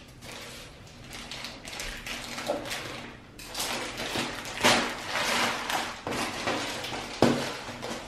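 Plastic packaging crinkling and rustling as a courier poly mailer and a black plastic bag are pulled open and off a cardboard box, in irregular bursts, with a sharp knock near the end.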